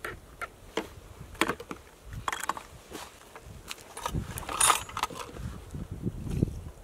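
A plastic chainsaw fuel can being handled: a series of clicks and knocks from its caps and spout, and boots crunching in snow, as it is lifted and tipped to refuel the chainsaw. The loudest scrape comes about halfway through, with heavier thuds after it.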